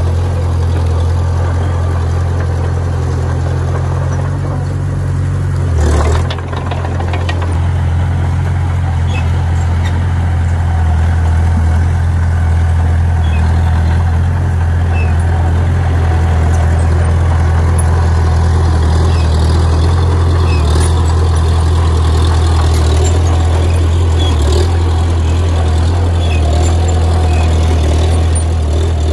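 Heavy diesel engine of earthmoving machinery running steadily with a deep low hum, with a brief knock about six seconds in.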